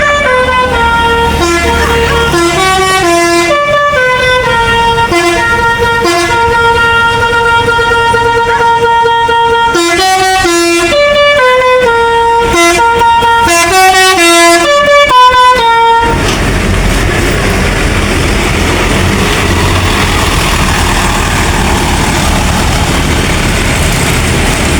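A bus's basuri musical horn plays a stepping melody of held and quick notes for about sixteen seconds, then stops abruptly. Steady vehicle noise follows.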